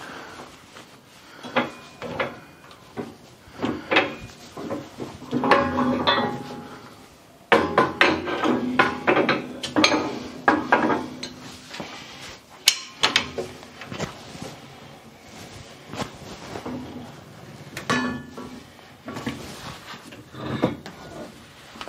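Heavy steel plate being handled and lifted off a hydraulic press: irregular metal clanks, knocks and scrapes, some ringing briefly.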